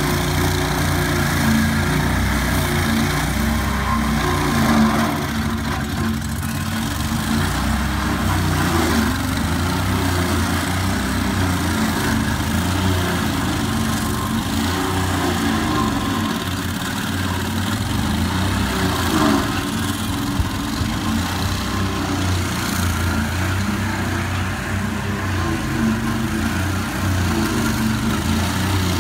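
Small petrol engine of a stump grinder running steadily at a constant speed.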